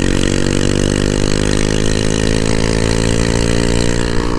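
Suzuki Shogun motorcycle's single-cylinder four-stroke engine running with no exhaust muffler, a loud open-pipe note held at a steady pitch while riding.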